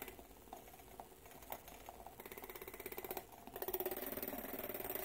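Rechargeable handheld milk frother, a damaged one held together with tape, buzzing with a fast pulse. It cuts out at the start with only a few clicks, then sputters back about two seconds in, breaks off briefly, and runs steadily for the last part. The stalling is the sign of its fault; once it runs steadily it is back to its normal sound.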